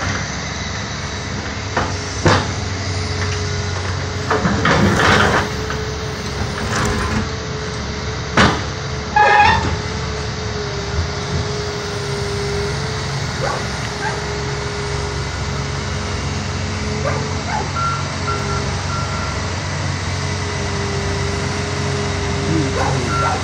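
Heavy diesel construction machinery running steadily, with several loud metal bangs and clanks in the first ten seconds. A reversing beeper sounds a few times past the middle and again at the very end.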